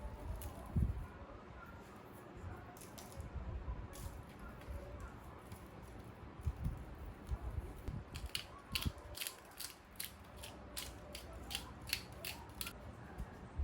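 Scissors snipping in a quick regular run, about three cuts a second, through the second half. Before that come low knocks of objects being handled.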